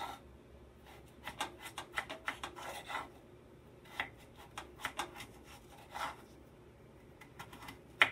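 Kitchen knife slicing peeled raw potatoes into wedges on a wooden cutting board. A quick run of short cuts and taps comes in the first few seconds, then single cuts about a second apart, and a sharper knock near the end.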